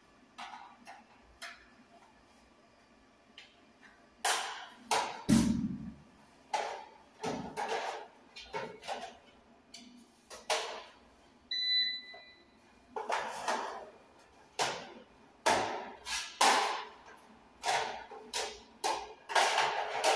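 Handling noise at a network rack: plastic access-point units and Ethernet patch cables knocking, rustling and clicking in irregular bursts, with a heavier thump about five seconds in. A short electronic beep sounds about halfway through.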